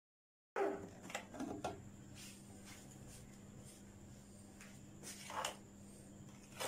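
Faint clicks and knocks of a food processor's plastic lid being handled and taken off, the machine switched off, then a brief scrape about five seconds in as a spatula goes into the plastic bowl of minced chicken. A faint steady hum underneath.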